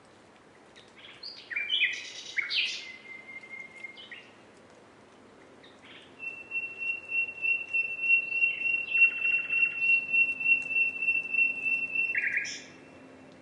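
Nightingale singing: a few short, varied phrases, then one long, rapid trill of repeated notes held on the same high pitch for about six seconds, closing with a quick burst of notes.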